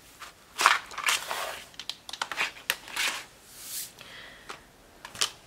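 Clear plastic stamp-set case and plastic sleeve of metal dies crinkling and rustling as they are picked up and cleared away by hand, with a few sharp clicks of plastic near the end.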